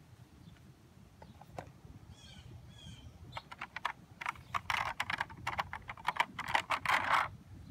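Clear plastic packaging tray crackling and clicking as a phone case is pressed and pried out of it, a quick irregular run of clicks and crinkles that grows louder over the last few seconds.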